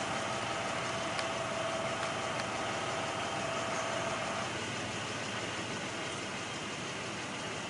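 A vehicle engine running steadily, with a faint steady whine that drops out a little past halfway, over a steady hiss.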